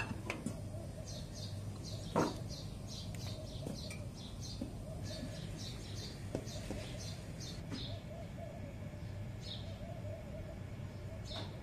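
A small bird chirping in two quick runs of short high notes, about four a second, then a few single chirps near the end, over a steady low hum. A few light knocks sound, the sharpest about two seconds in.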